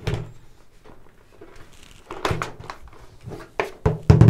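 Hard plastic clicks and knocks as a motorcycle helmet's visor is unclipped from its side mounts and lifted off the helmet, with a few heavier thumps near the end.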